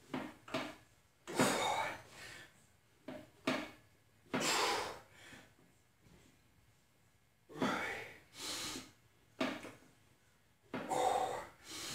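A man's heavy, forceful breathing, hard puffs and exhales every second or two, as he strains through a set of barbell preacher curls.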